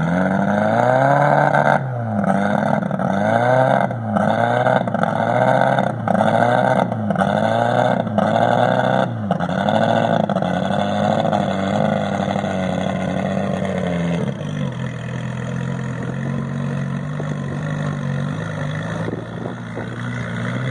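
Engine of an amphibious vehicle running on the water. Its pitch swings up and down about once a second, then about two-thirds of the way through it settles into a steadier, slightly quieter running.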